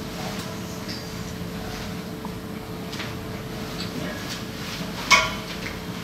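Sleep-study sensor leads and connectors being handled on a metal stand: a few light clicks over a steady hum of room noise, then one sharp clink that rings briefly about five seconds in.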